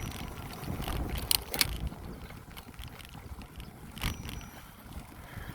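Bicycle ride heard from the rider: wind rumbling on the microphone over the rolling noise of the ride. Three sharp clicks or rattles come about a second in, just after, and about four seconds in.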